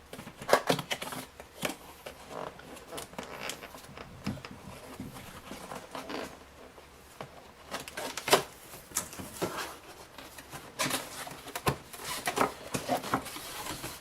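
Gun vise's shipping box being opened and its packing handled: irregular scrapes, rustles and knocks, with a few louder knocks.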